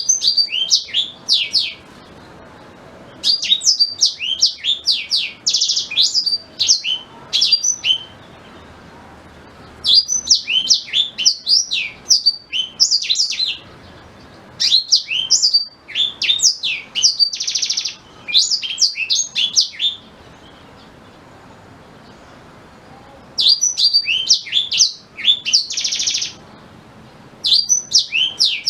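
Blackthroat (yellow-rumped seedeater) singing. It gives about six bursts of fast, high twittering song, each made of quick falling notes and short buzzy trills, with brief pauses between them.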